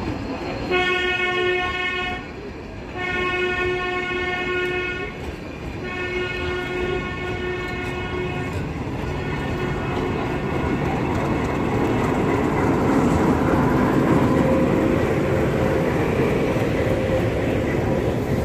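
Horn of a YDM4 metre-gauge diesel locomotive sounding three long blasts as the train rolls in, then a fainter fourth. After that the diesel engine's running and the wheels on the rails grow louder as the locomotive passes close.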